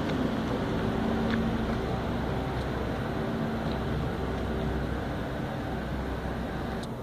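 Peterbilt semi truck's diesel engine idling steadily, a low even hum.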